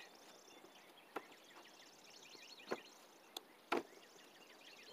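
A few sharp knocks and clicks from hands working at the RV's exterior siding and trim, the two loudest about three and four seconds in, with faint birds chirping behind.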